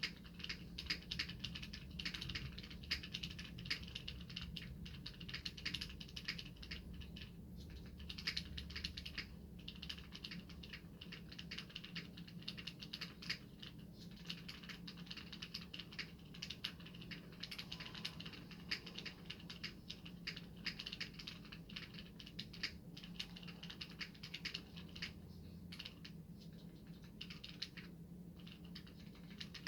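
Typing on a Tofu65 custom 65% mechanical keyboard with lubed Gateron Yellow linear switches: a fast, continuous run of key clacks with a few short pauses, recorded through a phone's microphone over a steady low hum.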